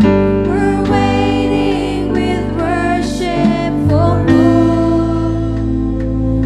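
Slow praise-and-worship music: a sung melody gliding over sustained chords and a steady bass.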